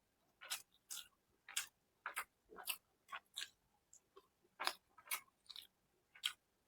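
Close-miked wet chewing and lip-smacking of a person eating soft food, short sharp smacks coming about twice a second.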